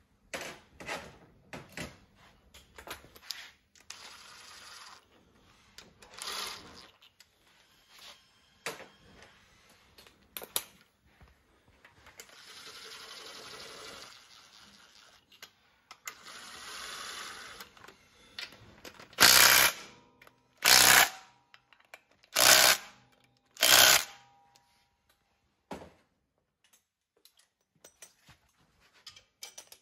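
Four short bursts of a cordless power driver running bolts home, the loudest sounds here, about a second and a half apart in the second half. Before them come scattered small clicks, knocks and rustles of tools and metal parts being handled.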